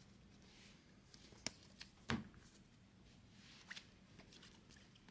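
Faint handling of a stack of 2020 Bowman baseball cards: cards sliding and flicking as they are thumbed through, with a few soft taps, the sharpest about two seconds in.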